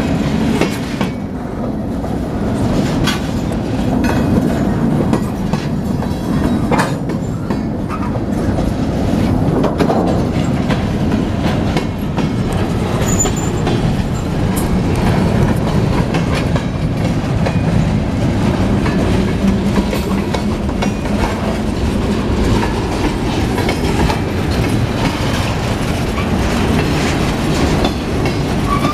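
Portland & Western freight train's boxcars and covered hoppers rolling past: a steady rumble of steel wheels on rail, with repeated clicks and clacks as the wheel trucks go over the track.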